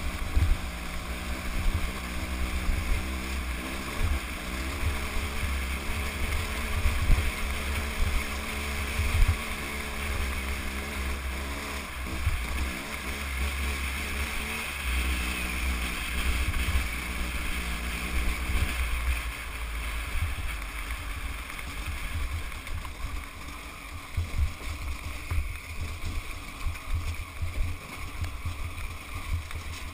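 Motorcycle engine running at varying revs while riding, under heavy wind buffeting on the microphone. Its pitched note fades under the wind and road noise about two-thirds of the way through.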